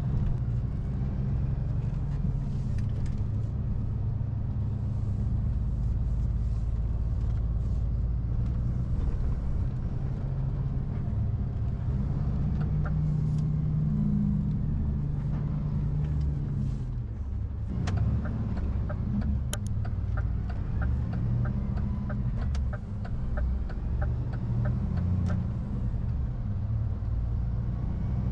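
Cab interior of a DAF truck on the move: its diesel engine and road rumble run steadily, with the engine note changing and dropping about two-thirds of the way through. After that the turn-signal indicator ticks, about twice a second, for several seconds.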